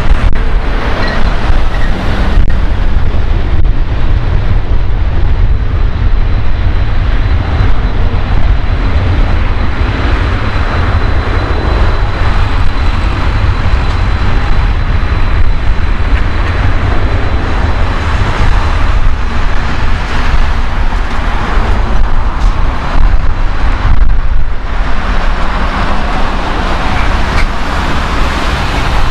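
Airbus A330 airliner's jet engines at takeoff thrust during the takeoff roll: a loud, steady roar with a heavy low rumble, and a faint high whine held through the first two-thirds.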